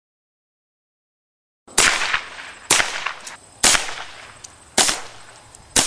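Silence for about a second and a half, then five rifle shots at about one a second, each a sharp crack with a short echo.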